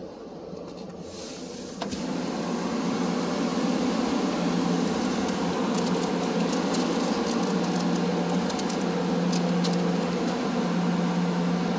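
Steady mechanical drone of automatic car wash machinery with a low hum. It grows louder and fuller about two seconds in, with faint light ticks later on.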